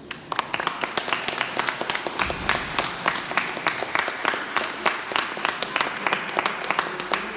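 A small group of people applauding the end of a performance, the clapping breaking out just after the start and keeping up steadily.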